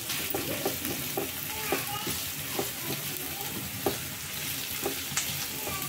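Onion and grated coconut sizzling in hot oil in a non-stick frying pan, stirred with a silicone spatula that knocks and scrapes against the pan at uneven intervals.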